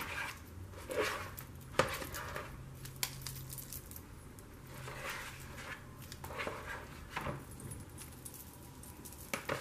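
A spoon scooping mashed potatoes out of a plastic bowl and onto a casserole dish: short scrapes and soft wet plops with a few sharp clicks of the spoon, and metal bangles jingling on the wrist.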